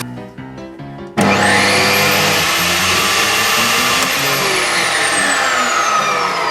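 Homemade table saw's motor switched on about a second in, spinning up with a quickly rising whine. It runs steadily for a couple of seconds, then is switched off and coasts down with a slowly falling whine. Background music plays underneath.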